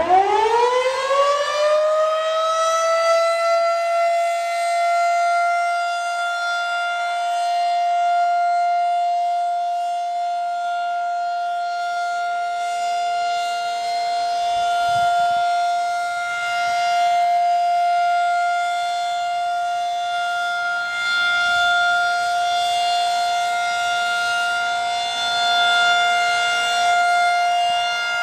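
Federal Signal 2001-SRN electromechanical warning siren winding up, its pitch rising over the first two or three seconds, then holding one steady high tone with gentle swells in loudness. This is the steady Alert signal of a siren test.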